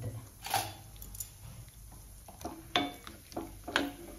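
Metal spoon knocking and scraping against a non-stick wok while stirring cashews and raisins in ghee, with a few separate light clicks, the sharpest two near the end.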